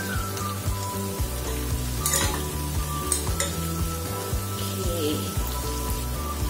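Masala sizzling in a hot pan, with scrapes and clinks of a metal slotted turner and spatula against the pan as a fried whole chicken is lifted out. The sharpest scrapes come about two and three seconds in.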